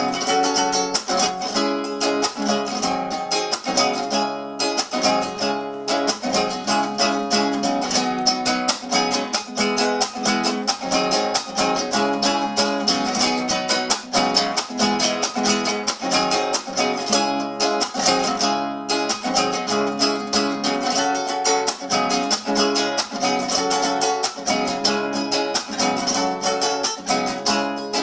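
Acoustic guitar strummed in a brisk, steady rhythm, playing an improvised carnavalito (Andean folk dance tune).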